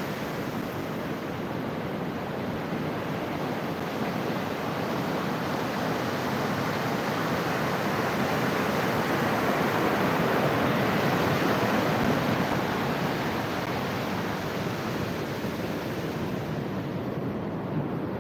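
Sea surf washing onto a beach, a steady rushing noise that swells slowly to a peak about two-thirds of the way in and then eases off.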